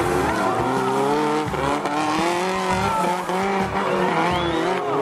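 Engines of modified off-road jeeps revving hard under load, several at once, their pitch rising and falling continually.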